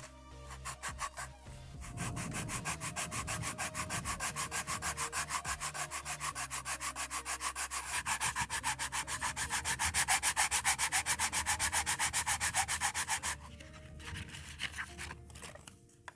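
Hand sanding: the end of a PVC pipe rubbed back and forth on silicon carbide sandpaper in quick even strokes, about four or five a second. The strokes start about two seconds in and stop a few seconds before the end.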